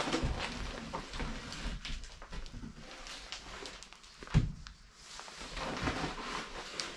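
Thin wooden ceiling boards being pried and torn down by hand, cracking and splintering with debris falling, and one heavy thud about four and a half seconds in.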